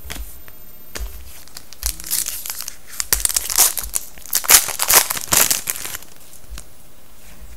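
Foil wrapper of a 2011-12 Panini Contenders hockey card pack being torn open and crinkled by hand: a run of crinkling bursts through the middle, with a few light taps of card handling before it.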